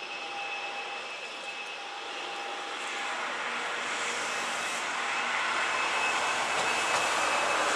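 Boeing 737 airliner's CFM56 jet engines on final approach to landing: a steady high whine over a broad rushing noise that grows gradually louder as the jet comes closer.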